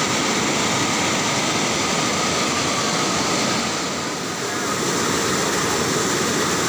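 Steady rush of a waterfall in full flow, white water pouring over a broad rock slope, running high after heavy rain. It dips briefly about four seconds in.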